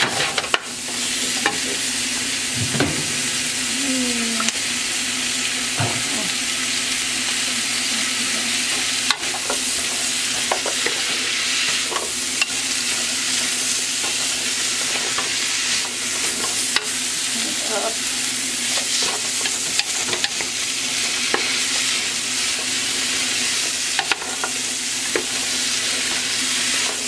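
Sliced bell peppers, broccoli and onions sizzling in sesame oil in a large metal pot, stirred and tossed with a wooden spatula, with scattered short scrapes and clicks of the spatula against the pot over a steady frying hiss.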